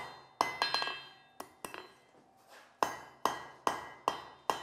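Blacksmith's hand hammer striking a red-hot iron ball on the anvil, sharp ringing blows as the forged ball is finished to shape. A few blows come in the first second and a half, then after a short pause five evenly spaced blows, about two a second.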